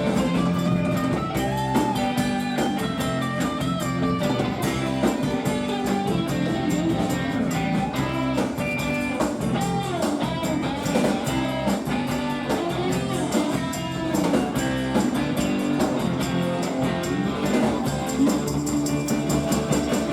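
Live rock band playing an instrumental passage, with electric guitar and a bending lead line over bass and drums.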